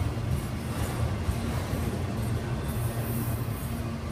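Freight train of autorack cars rolling past at close range, a steady low rumble of wheels on rail.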